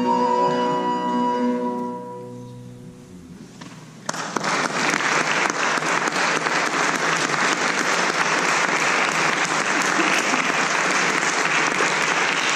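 Recorder, viola da gamba and theorbo hold the final chord of a baroque sonata, which dies away over about two seconds. After a short hush, audience applause breaks out about four seconds in and carries on steadily.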